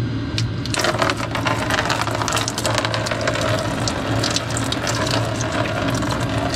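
Engine coolant pouring out of a disconnected hose at an L5P Duramax's fuel coolant pump and splashing below, the splatter growing much louder about a second in. A steady low hum runs underneath.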